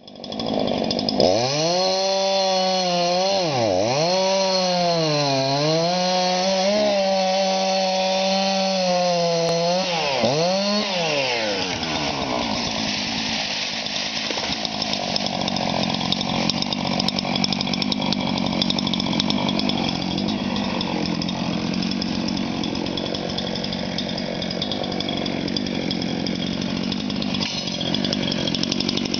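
Two-stroke gas chainsaw running at high revs, its pitch dipping sharply several times as the chain bogs under load cutting into a rotten tree trunk. From about eleven seconds in the engine runs on with a rougher, noisier, less even tone.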